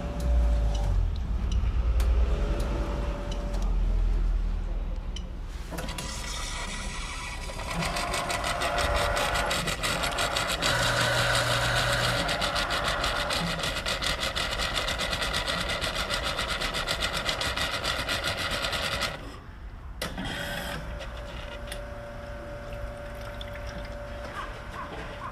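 Melitta Cafina Alpha espresso machine pumping and spitting liquid from its dispensing outlet in a spraying jet onto the drip tray, with a fast, steady pulsing that grows louder about six seconds in and briefly drops out about nineteen seconds in. The spray instead of a smooth flow is the fault in its milk dispensing.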